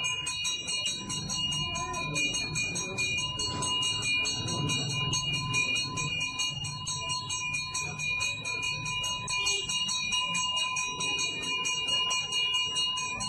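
A bell rung rapidly and without pause, its ringing tones held steady throughout.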